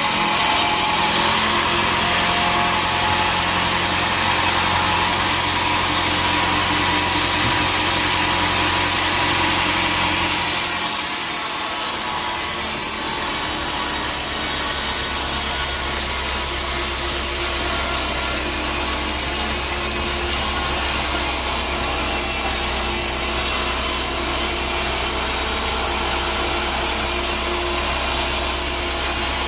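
Sawmill saw cutting through a log: the machine runs with a steady hum under the noise of the blade in the wood. The sound shifts abruptly about ten seconds in, the high hiss dropping and the low hum changing.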